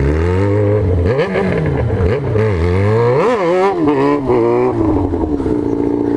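Yamaha XJ6 600 cc inline-four motorcycle engine under throttle. It revs up and drops back several times, then settles to a steady pitch near the end.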